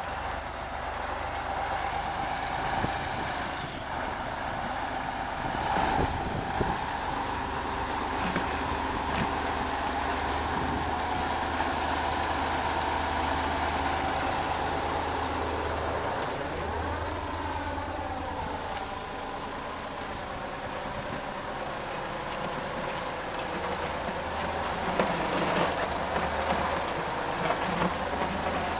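GS-14 motor grader's diesel engine running steadily as the machine works, its pitch dropping and rising again about two-thirds of the way through, with a few knocks.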